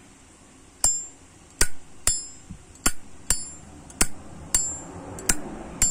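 Brand-new Zippo windproof lighter's hinged lid being flipped open and snapped shut over and over: about nine sharp metal clicks in open-and-close pairs, several ringing with a brief high ping. It is the lid's open 'bell' ping that collectors judge a Zippo by, here sounding quite nice.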